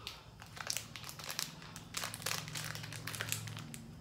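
Plastic wrapper of a Goriorio biscuit-sandwich packet crinkling and crackling as it is pulled and torn open by hand, in a run of short, irregular crackles.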